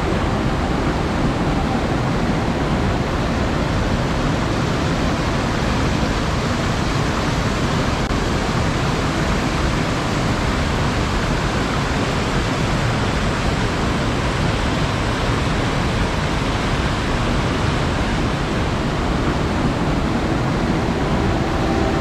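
Waterfall pouring into a pool: a steady, dense rush of falling water that stays even throughout.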